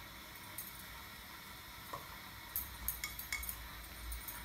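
Faint sizzle of semolina harcha cooking on an oiled flat griddle, with a few light clicks and clinks from hands shaping dough over a bowl about halfway through.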